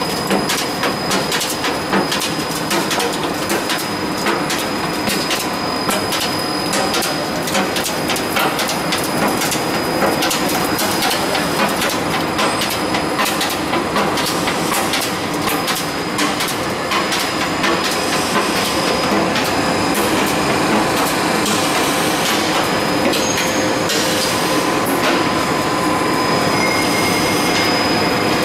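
Roll forming machine running, with coated steel sheet feeding through its forming rollers to shape a double cap ridge profile. It makes a steady mechanical clatter with many quick ticks and a thin, high, steady whine.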